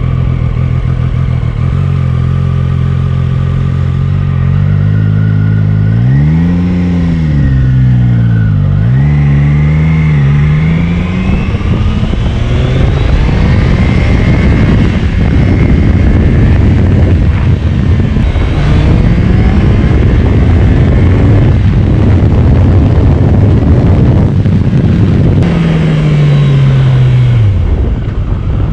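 Triumph Daytona 660's three-cylinder engine heard from the rider's seat while riding. It runs steadily at low revs at first, and its pitch briefly rises and falls about six seconds in. It then climbs as the bike accelerates, with a rushing noise building at speed, and near the end the engine note drops away as the bike slows.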